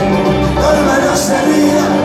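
Live Mexican band music, an instrumental passage with no singing: held instrument notes over a steady beat, with cymbal splashes.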